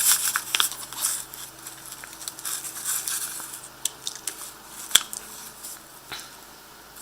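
An OTF knife being slipped into its sheath and the sheath handled, with scraping, rustling and small clicks, and one sharp click about five seconds in.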